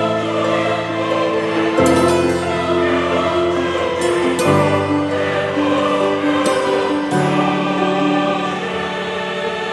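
Background music of slow, sustained chords that change about every two to three seconds.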